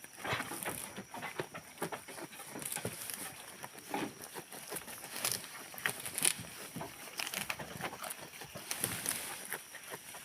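Goats moving about and feeding: irregular rustling and light knocks, with no clear bleat.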